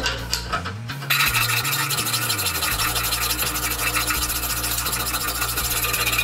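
Flat hand file rasping across the edge of a steel plate in steady strokes, starting about a second in.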